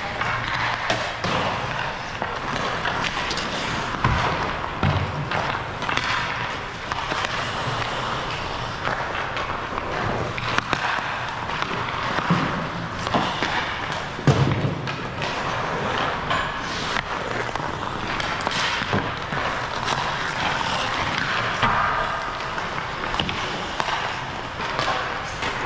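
Ice hockey play on a rink: a steady scraping hiss of skates with irregular sharp knocks and thuds of pucks and sticks, the loudest around 4 and 14 seconds in.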